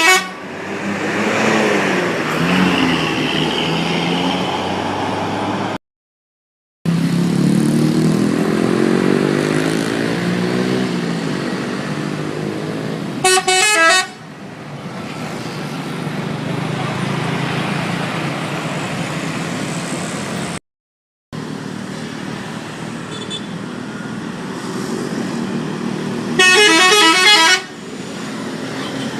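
Bus telolet horn: a multi-tone musical horn sounding in two short bursts of quickly alternating notes, about halfway through and near the end. Between them, bus engines and road traffic pass with rising and falling engine pitch, and the sound drops out completely twice, briefly.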